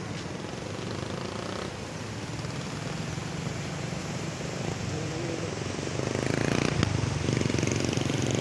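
Small boat's engine running steadily with a low, pulsing hum, growing louder about six seconds in.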